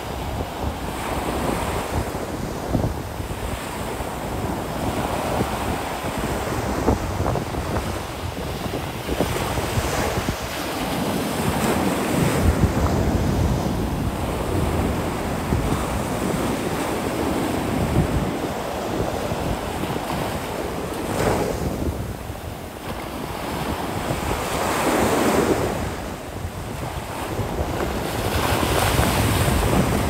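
Ocean surf breaking and washing up the sand, swelling and easing every few seconds, with wind rumbling on the microphone.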